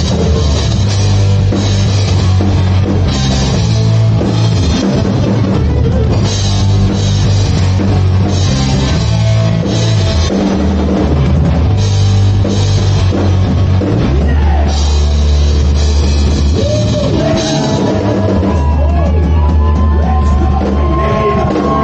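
Live rock band playing loud: electric guitars, bass guitar and a drum kit with cymbals. A singer's voice comes in over the band near the end.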